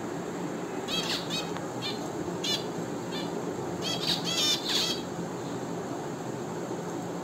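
Caged finches calling: short, high chirps, a few scattered ones in the first three seconds, then a denser run about four to five seconds in.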